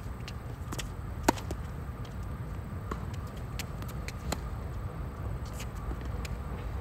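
Tennis ball struck by racket strings during a rally: a sharp pop about a second in and another about four seconds in, with fainter pocks of the far player's shots and ball bounces between, over a steady low background rumble.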